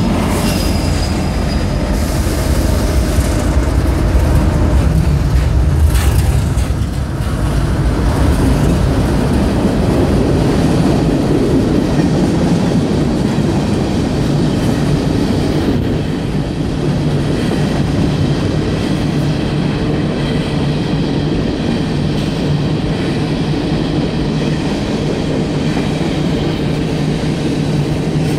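A coal train passing close below: heavy diesel locomotive rumble for the first several seconds, easing off around seven seconds in. After that comes the steady roll of hopper cars, wheels clattering on the rails, with faint high squealing tones in the later part.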